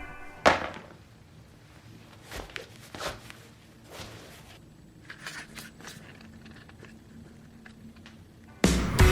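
Quiet stretch with a sharp knock about half a second in, then scattered soft clicks, scrapes and crunches.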